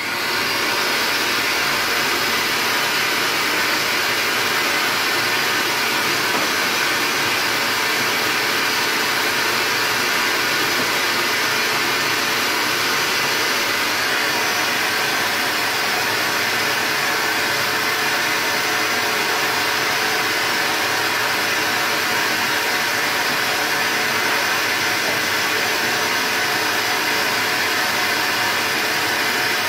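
Stainless-steel wet/dry shop vacuum running steadily, its hose nozzle sucking dust off a window frame.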